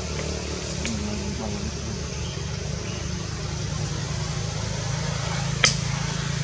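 Steady low mechanical hum over a faint background hiss, with a faint click about a second in and a sharp, louder click near the end.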